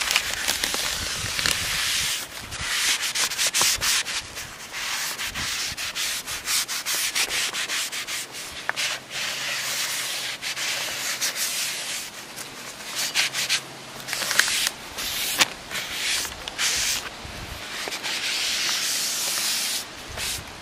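Paper shop towel rubbing and scrubbing over the face of a new brake rotor in repeated wiping strokes, with scattered sharp crackles. The towel is cleaning brake parts cleaner and the factory oily film off the rotor surface.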